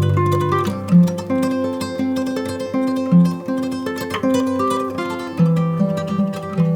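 Background music: a plucked-string tune, guitar-like, with a bass line under a simple melody.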